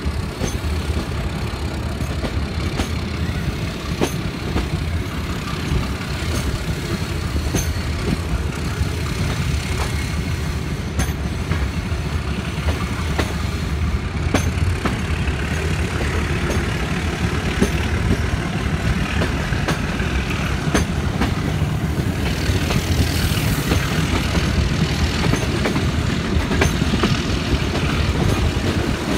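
Passenger train running at slow speed, heard from an open carriage window: a steady rolling rumble of wheels on rails with occasional sharp clicks, and a brief rise of high hiss about three-quarters of the way through.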